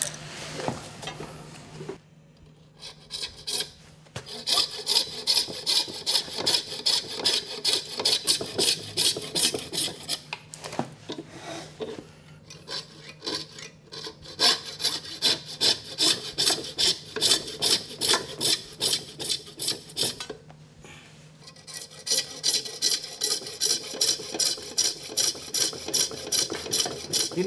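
Coping saw cutting through walrus ivory clamped in a bench vise, in steady back-and-forth strokes about two a second. The strokes start a few seconds in and break off briefly about three-quarters of the way through before going on.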